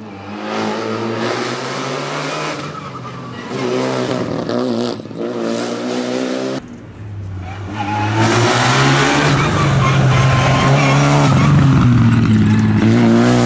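Renault Clio Rally5 rally car engine revving hard, its pitch climbing and dropping as it shifts through the gears. It is heard from the roadside. The sound cuts off abruptly about halfway, and a second pass follows that grows louder as the car comes closer.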